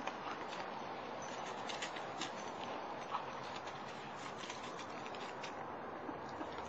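Scattered light crackles and ticks of dry fallen leaves under a young dog's paws as it moves about on them, over a steady hiss.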